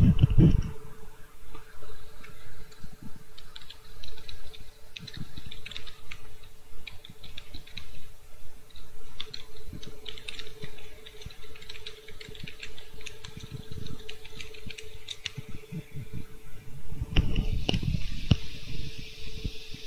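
Computer keyboard typing: irregular runs of clicking keystrokes over a steady low hum, with a louder stretch of noise near the end.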